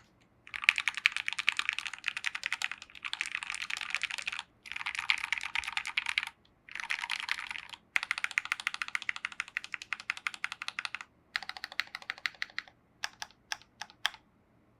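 Fast touch-typing on a Vulcan x KBDFans Maja split mechanical keyboard with linear Gateron Ink Black V2 switches lubed with Krytox 205g0, a brass plate and PBT keycaps: dense runs of keystrokes broken by short pauses. Near the end the typing slows to a few separate keystrokes.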